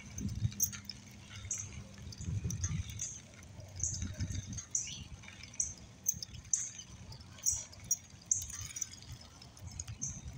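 Wind gusting on the microphone of a moving bike, with a short high squeak that repeats about once a second.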